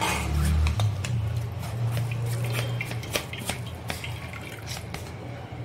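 Water poured over fresh chhena in a plastic strainer, splashing and dripping through the mesh, with scattered small clicks. This is the rinse that washes the vinegar out of the curd.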